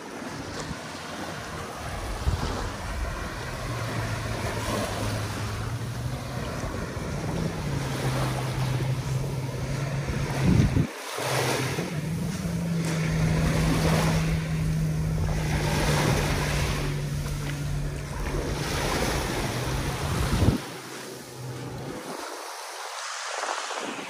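Waves washing onto a beach, with wind buffeting the microphone. A low steady hum runs underneath, steps up in pitch about halfway through, and stops near the end.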